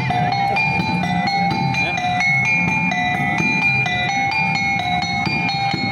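Topeng monyet accompaniment: small tuned metal gongs struck in a quick, steady alternating two-note pattern over a hand drum beat.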